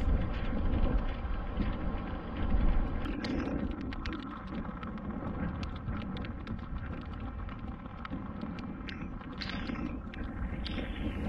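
Wind rumbling on the microphone, with scattered light clicks and a few short squeaks in the second half.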